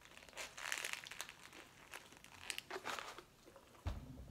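Faint crinkling of a paper burger wrapper held in the hands while the burger is bitten into, as short rustles over the first few seconds. A dull low thump comes near the end.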